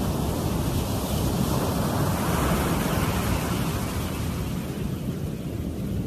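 Ocean surf breaking and washing up a sandy beach, with wind rumbling on the microphone. A wave swells and breaks about two to three seconds in, and the wash eases a little near the end.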